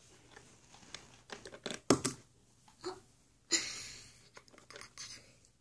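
Small plastic toy figures and a plastic carrying case handled by hand: scattered clicks and knocks, the sharpest about two seconds in, then a rustling scrape about halfway through that fades over a second.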